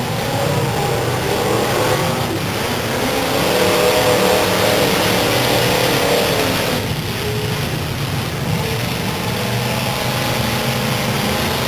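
Engines of several full-size demolition derby cars running and revving together, a steady loud mix of engine noise with pitches rising and falling.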